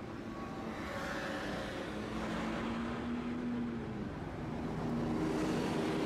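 Street traffic: road vehicles running, with a noise haze and steady engine or motor hums that shift in pitch and grow a little louder near the end.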